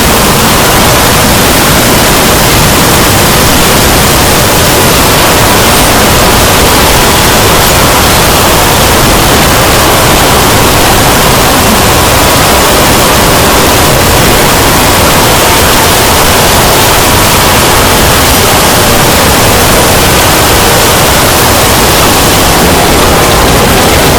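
Loud, steady static-like noise, an unbroken hiss across the whole range.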